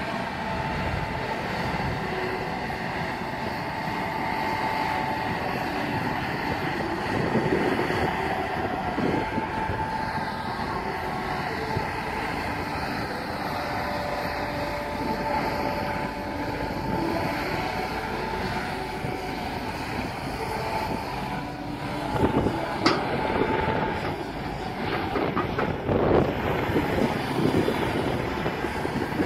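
Kobelco SK210LC-10 long-reach excavator running steadily while digging, with a constant engine drone and a steady whine. A few sharp knocks come in the last third.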